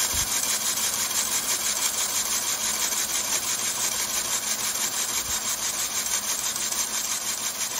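3D-printed plastic mini beam engine running on compressed air: a steady rapid hiss and clatter of air exhausting from its cylinder and plastic linkages working, in fast even pulses.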